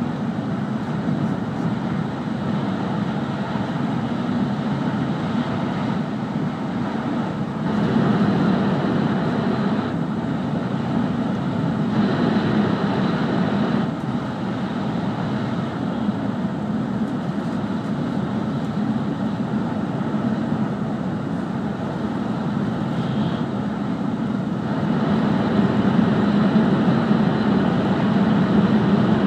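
Steady running noise inside an E5 series Shinkansen car travelling at speed: a deep rumble and rush from the wheels, running gear and air. It grows louder for a few seconds at a time, about a third of the way in, and again near the end.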